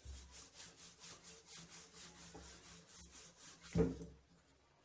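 Wooden rolling pin rolling out paratha dough on a wooden board, rubbing back and forth in quick even strokes, about four a second, with one louder knock near the end.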